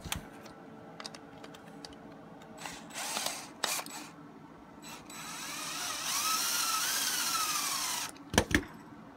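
Handheld power drill/driver running for about three seconds, backing a screw out. Its whine rises and then falls in pitch, with small metal clicks of handling before and after.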